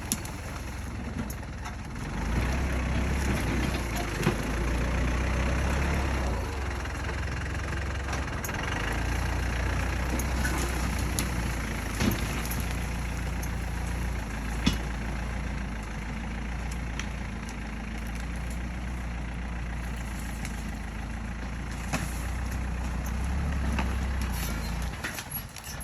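Tractor engine running while the tractor pushes, getting louder about two seconds in and rising and falling with the load, with a few sharp knocks; it drops away near the end.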